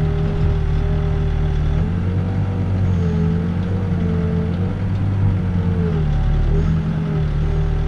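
Backhoe diesel engine running steadily. Its pitch dips and rises between about two and six seconds in as the hydraulics load it while digging.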